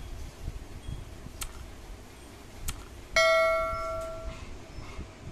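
Two sharp clicks, then a single bright bell ding that rings out and fades over about a second. This is the stock sound effect of a YouTube subscribe-button-and-bell overlay animation, over a low background rumble.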